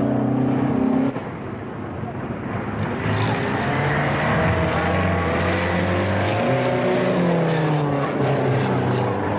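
Several racing cars' engines running and revving, their pitches rising and falling as they come round. The sound drops away about a second in, then builds again from about three seconds in as more cars come through.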